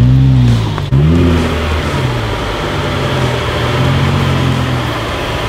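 Lifted Jeep Wrangler JK's engine, fitted with an Injen intake, rising and falling in pitch twice in quick throttle blips in the first second. It then pulls at a steady pitch as the Jeep crawls along.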